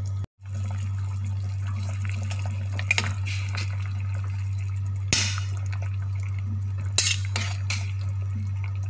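A ladle stirring soup in a stainless steel pot: liquid sloshing, with the ladle clinking against the pot a few times, loudest about five and seven seconds in. A steady low hum runs underneath.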